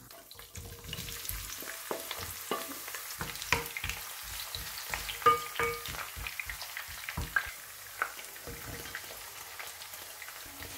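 Chopped onion and leek sizzling in hot olive oil, with frequent small knocks and clicks as a wooden spoon stirs them and more vegetables are tipped in.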